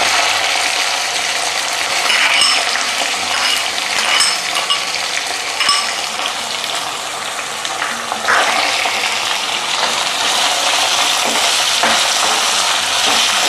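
Onions frying in hot oil in a kadai, a steady sizzle, with a spatula clinking and scraping against the pan several times as they are stirred.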